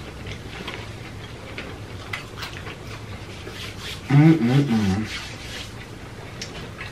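People chewing food, with a few faint, soft crunches and clicks over a steady low hum, and a drawn-out hummed 'mmm' of enjoyment about four seconds in.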